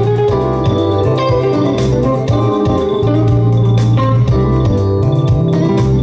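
Instrumental keyboard music with a beat and heavy bass, played through a pair of speakers and a subwoofer driven by an Up2Stream Amp 2.1 amplifier board, with the bass turned up.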